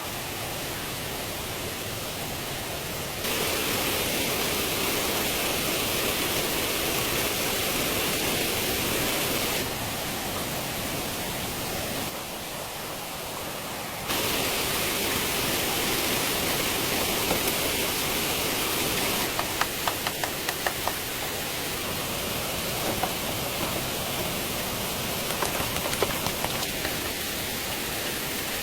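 A steady hissing wash of outdoor noise, like rain or rushing water, that jumps abruptly in level several times. Scattered light taps come in over the last third.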